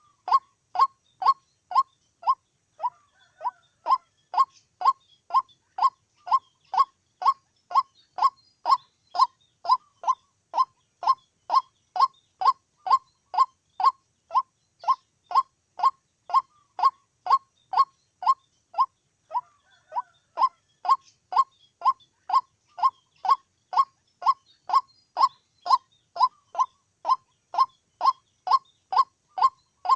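White-breasted waterhen calling: a monotonous series of short, downward-sliding notes repeated about twice a second, with brief breaks about 3 seconds in and again near 19 seconds.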